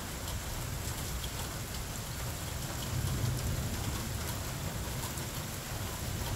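Steady rain falling on pavement and lawns during a thunderstorm, with a low rumble that swells briefly about three seconds in.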